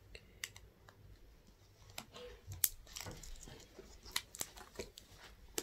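Faint, scattered clicks and light taps of a replacement laptop LCD panel being handled and pressed into the screen lid, with one sharper click about halfway through.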